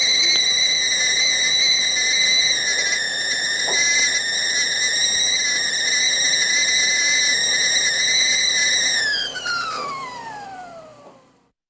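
Stovetop kettle whistling at the boil: one steady, loud, high whistle that, about nine seconds in, slides down in pitch and fades away to nothing.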